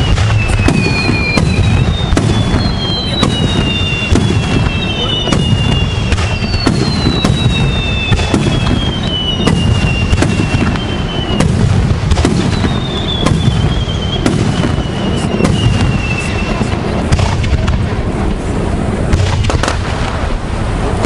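Aerial fireworks going off without a break: a steady rumble of bursts and many sharp bangs and crackles, with several long whistles overlapping that each fall in pitch over a few seconds.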